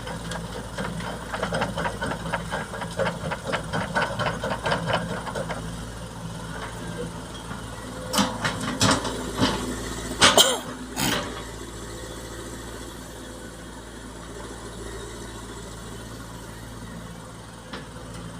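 Heavy diesel machinery running steadily as sand is loaded into a dump truck. For the first five seconds there is a quick run of knocks, about three or four a second. Around eight to eleven seconds in come several loud bangs, the loudest about ten and a half seconds in.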